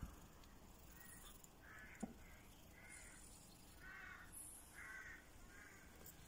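Cat giving a series of short meows, about one a second, with one sharp click about two seconds in.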